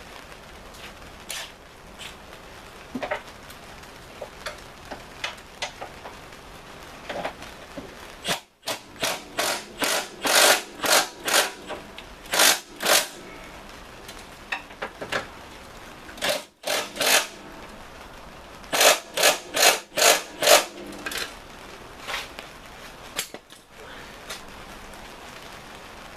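Hand ratchet wrench tightening engine mount bolts: two runs of quick, even ratcheting strokes, about three a second, with scattered clinks of tools between them.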